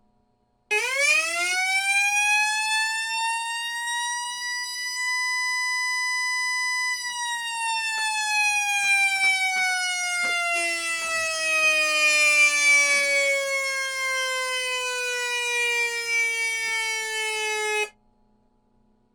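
Whelen electronic siren sounding its simulated mechanical-siren tone. It winds up in pitch over about four seconds and holds at the top for a couple of seconds, then winds slowly down like a coasting mechanical siren rotor before cutting off suddenly.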